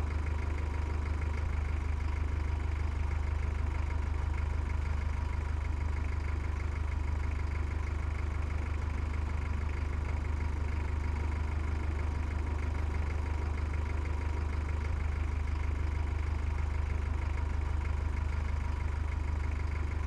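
Heavy vehicle engine idling steadily, with a deep, even low hum.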